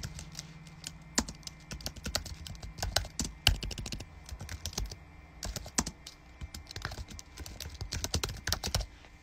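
Typing on a keyboard: a quick, irregular run of key clicks, with a short pause about halfway through.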